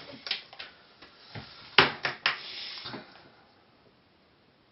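A few sharp clicks and knocks from handling a multimeter and small tools on a wooden tabletop, the loudest about two seconds in, followed by a short rustle, then quiet.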